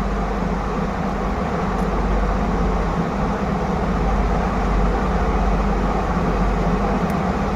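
Steady mechanical hum with an even rushing noise, unchanging throughout: a running machine in the room, of the fan kind.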